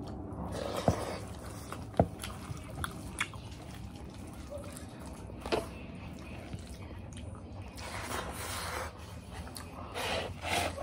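Chewing and wet mouth sounds of people eating rice and meat with their hands, with a few sharp clicks scattered through.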